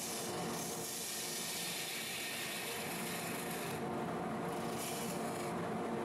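Wood lathe running with a steady hum while a bedan tool cuts across the end of a spinning Osage orange blank, a hissing scrape of the cut. The cutting stops about two-thirds of the way through, then comes back for one short pass near the end.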